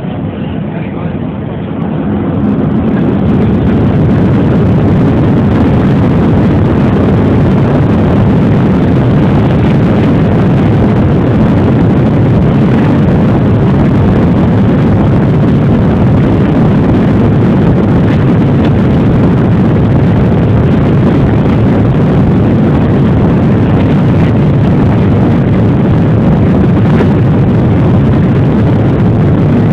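Boeing 737-800's CFM56-7B turbofan engines heard from inside the cabin, rising to takeoff thrust about two to four seconds in, then a loud, steady rumble through the takeoff roll.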